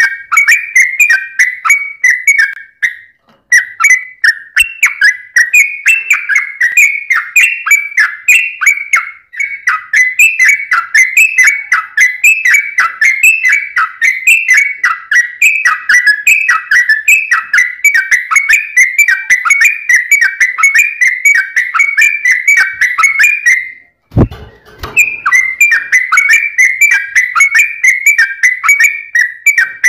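Sooty-headed bulbul (trucuk) singing a fast, dense string of whistled phrases with almost no pause. The song breaks off briefly twice, the second time with a short low thud.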